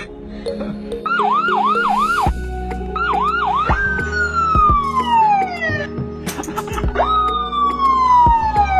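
A boy imitating a police or ambulance siren with his voice. About a second in comes a quick run of four rising-and-falling yelps, then three more, then two long falling wails.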